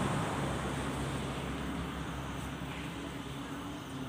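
Coconut milk pouring from a carton into a basin of dry bait mix, over a steady low hum.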